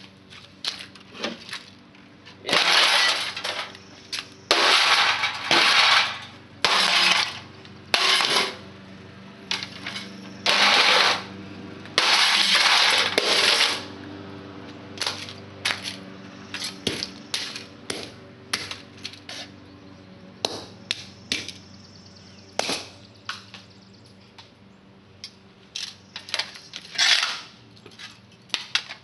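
Small sledgehammer smashing a heater and other electronics on concrete: repeated metal crashes and clattering of broken parts, some lasting about a second, with lighter clinks between.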